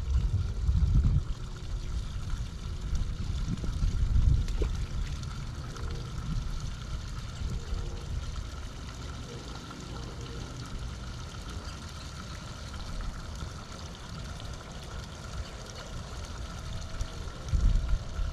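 Water trickling steadily in a small drain ditch, with bursts of low rumble about a second in, around four seconds in and again near the end.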